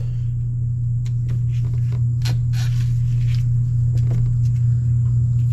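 Electric fuel lift pump on a New Holland TS110 tractor humming steadily, run to bleed air from the fuel system through an opened bleeder screw after a filter change. Scattered light clicks and taps sound over it.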